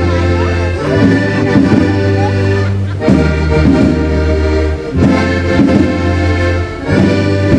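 Live band music led by several accordions playing a shanty-style tune, with a drum kit keeping the beat and low bass notes changing about every two seconds.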